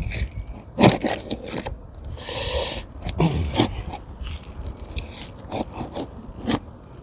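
Asphalt shingle being pried up to break its sealant strip: scattered sharp clicks and scrapes, with one longer tearing scrape about two seconds in.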